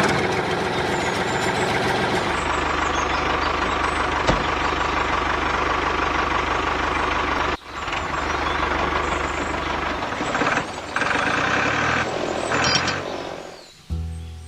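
Heavy vehicle engine running steadily. It breaks off abruptly for an instant about seven and a half seconds in, then resumes and stops shortly before the end.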